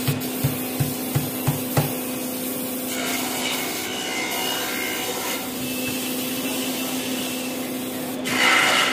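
Compressed-air spray gun hissing as finish is sprayed onto a wooden swing-cot frame, over a steady low hum. About eight quick knocks come in the first two seconds, and the hiss gets louder near the end.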